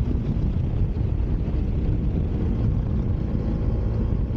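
Motorcycle riding noise from the rider's own Bajaj Dominar 400 cruising at a steady pace: its single-cylinder engine runs evenly under a heavy, rough rush of wind on the helmet microphone.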